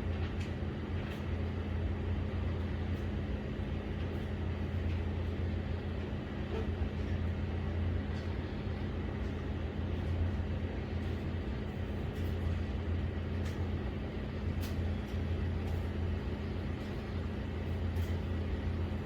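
Steady low hum and rumble with a noisy haze over it and a few faint ticks.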